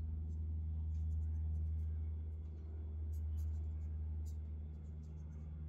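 Fishing line rubbing and scratching between fingertips as wraps are made for a line-to-line knot: light scattered scratches over a steady low hum.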